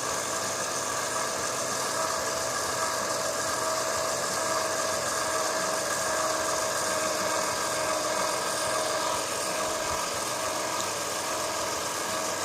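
Home-made mini lathe driven by a cordless drill's motor and gearbox, running steadily with a constant whine while a lock pin spins in its chuck to be spotted for drilling.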